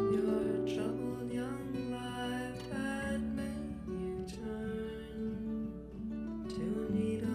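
Music led by a plucked, acoustic-sounding guitar over sustained bass notes; the bass drops to a lower note about three seconds in and returns near the end.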